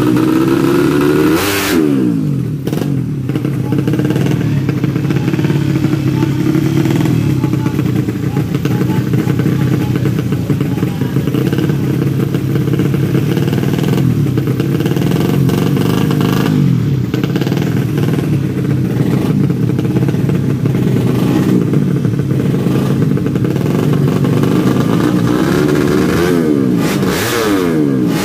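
Tuned four-stroke underbone drag-race motorcycles running and revving continuously, with sharp rising-and-falling sweeps in engine pitch near the start and again near the end.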